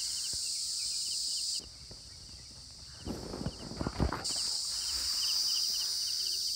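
Steady high drone of insects with a rapid pulsing chirp, which cuts out abruptly for a couple of seconds. During that gap comes a quick run of thumps, loudest about four seconds in.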